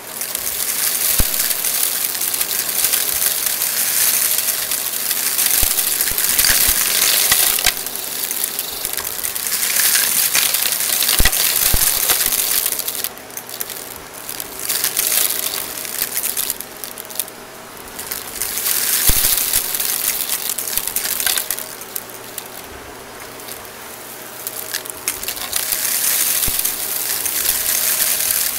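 Shark Navigator XL upright vacuum running with its brushroll off, sucking up a crunchy mix of glitter, star confetti, sequins and grit from carpet. A dense crackling rattle of debris going up through the machine rides over the motor's steady hum, thinning out at times.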